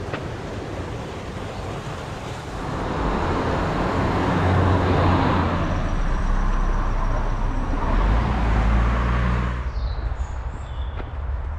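Road traffic noise: a steady low rumble with tyre hiss that swells for several seconds, then drops away about ten seconds in.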